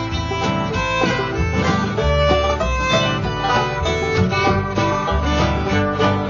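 Instrumental break in a sung country-style ballad: plucked string instruments playing over a steady bass beat.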